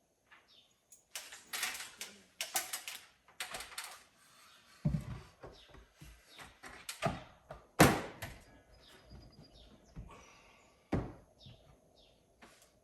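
Irregular knocks, clatters and thumps of wooden boards being handled and fitted, the loudest a heavy thump about eight seconds in.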